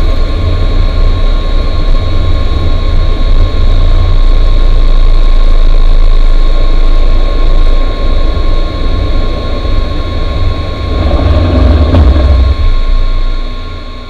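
Cockpit sound of an Avro RJ100's four Honeywell LF507 turbofans on the takeoff roll: a loud, steady engine whine over a deep rumble from the runway. It fades out near the end.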